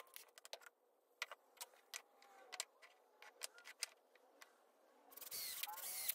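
Light clicks and knocks of pine boards being handled and set on a wooden workbench, then about five seconds in a cordless drill runs, pre-drilling a screw hole in the wood.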